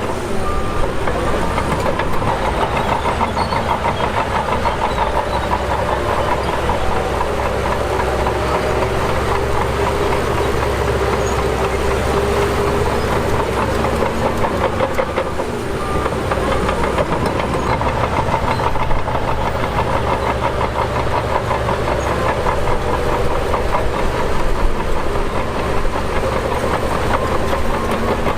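Shantui DH17 bulldozer working: its diesel engine runs steadily under load with a fast rhythmic clatter. Engine pitch sags and recovers about halfway through.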